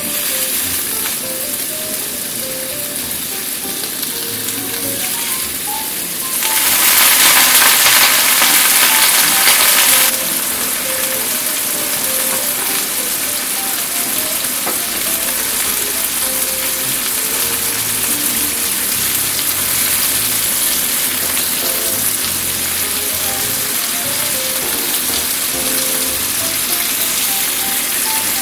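Bacon-wrapped enoki mushroom rolls sizzling in a frying pan, a steady frying hiss. The sizzle gets louder for a few seconds, starting about six seconds in.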